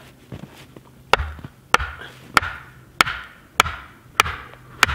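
Axe blows on wood: a few light taps, then about a second in, seven hard, evenly paced strikes roughly every 0.6 seconds, each with a short ringing tail.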